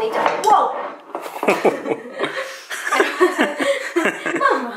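A woman laughing in a run of short bursts.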